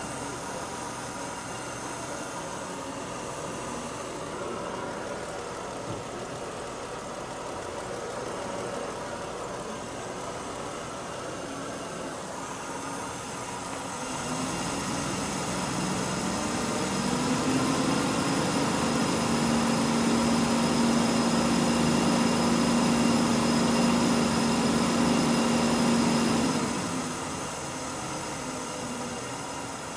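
Mercedes W124's M103 straight-six engine running under the open hood. About halfway through it gets louder with a steady hum, holds there for about ten seconds, then drops back to its quieter running a few seconds before the end.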